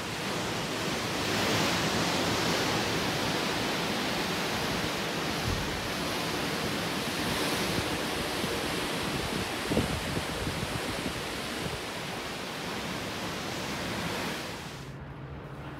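Sea water rushing and churning along the hull of a cruise ship under way, a steady heavy hiss with wind buffeting the microphone. There is a short knock about ten seconds in, and the sound drops away sharply near the end.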